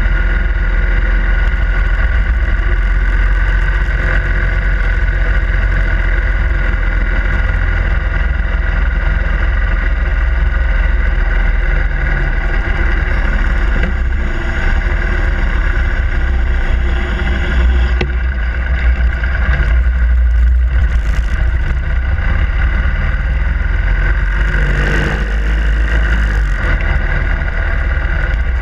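Harley-Davidson Sportster Iron 883's air-cooled V-twin engine running steadily while riding, with a short rush of noise about 25 seconds in.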